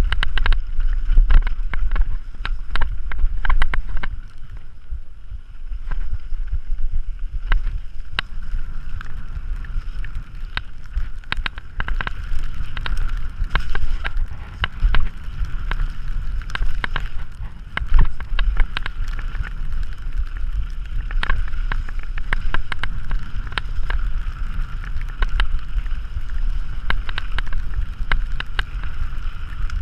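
Mountain bike descending a rough dirt and gravel trail: wind buffets the microphone with a steady low rumble, and frequent sharp clatters from the bike rattling over bumps.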